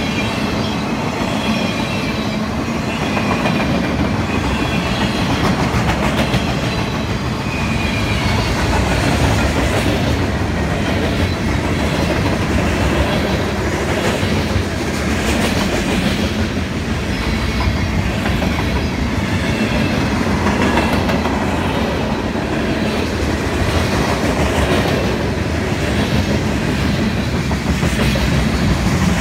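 A long CSX mixed freight train's cars rolling past steadily: a continuous rumble of wheels on rail with clickety-clack over the rail joints. Thin high squeals come from the wheels in the first several seconds.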